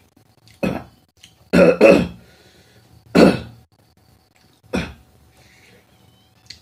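A man coughing and clearing his throat: five short, harsh coughs, two of them in quick succession about one and a half seconds in and the last about five seconds in.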